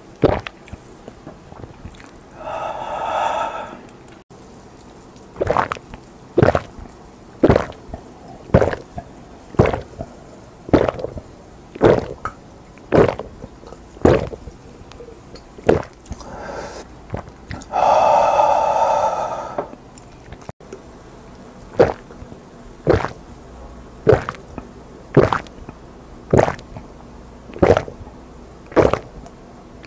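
Close-miked gulping of a man downing a drink in one go from a glass, a loud swallow about every second. Twice, near the start and just past the middle, a long breathy exhale as a drink is finished.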